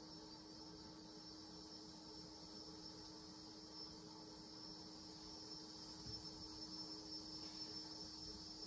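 Faint steady high-pitched electrical whine over a low hum, from plasma globes running at full power.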